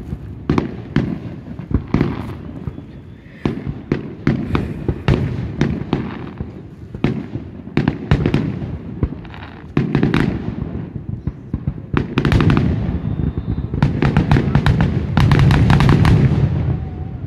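Aerial fireworks shells bursting one after another with sharp bangs and crackle, the bursts coming faster and denser over the last few seconds.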